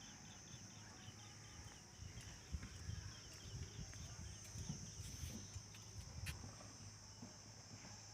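Insects chirping: a steady high-pitched trill, with a run of short quick chirps, about four a second, over the first half. Low uneven rumbling underneath.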